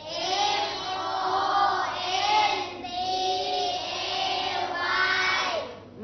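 A class of young children chanting the spelling of "Monday" letter by letter in unison, each letter drawn out in a sing-song tone.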